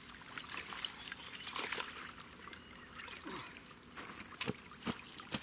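Water trickling and lapping in the shallows, with a few short splashes about one and a half and four and a half seconds in, as small just-released fish stir in the water.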